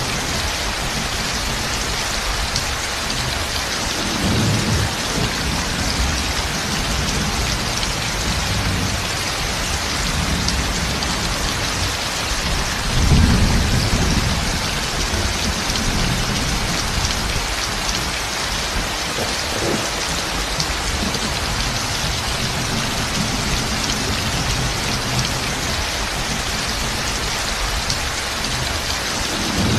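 Heavy rain pouring steadily, with low rolls of thunder a few times; the loudest roll comes near the middle.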